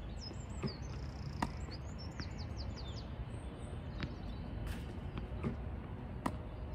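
Birds chirping and trilling throughout, with several sharp knocks of tennis balls spaced through it: balls fired from a ball machine, bouncing on the hard court and struck on the volley with a racket.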